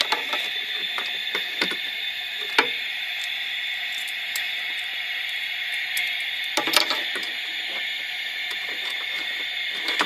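Mongoose car alarm siren giving off a steady static-like hiss, with a few sharp clicks, a cluster of them about two-thirds of the way through. The hiss is a fault: it carries on whichever way the siren kill switch is turned.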